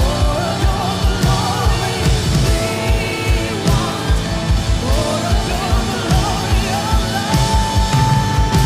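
Live worship band music with a driving drum beat and a voice singing over it; near the end a high held note comes in.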